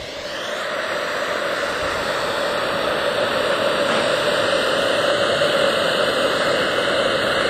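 Homemade end-burning rocket motor firing in place on the ground, a steady hiss of exhaust that slowly grows louder.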